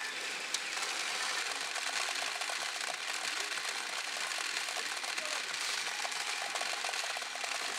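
Continuous fast metallic clatter of pachinko balls rattling through a pachinko machine during a jackpot round, with a single sharp click about half a second in.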